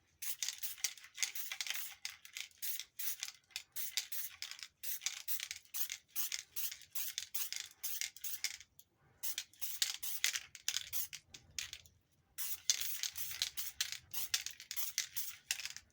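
Aerosol spray paint squirted in rapid short hissing bursts over the rebuilt vacuum advance unit, with a few brief pauses between runs.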